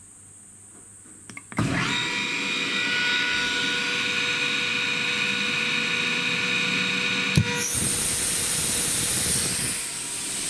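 ELGI E05en rotary screw compressor starting about a second and a half in, jumping straight to a loud, steady running whine. About seven and a half seconds in a sharp clunk comes as it loads, and a strong hiss of compressed air blowing out through the open discharge, which is vented to atmosphere, joins the running sound.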